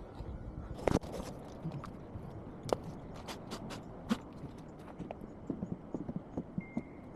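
Irregular knocks and clicks of hard objects being handled, several a second at times, with a short high tone near the end.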